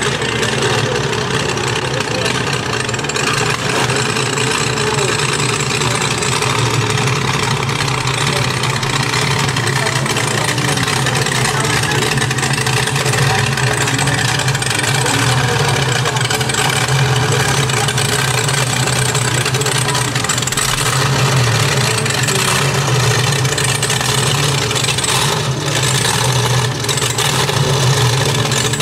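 Inboard engine of a classic wooden motorboat running steadily at idle speed.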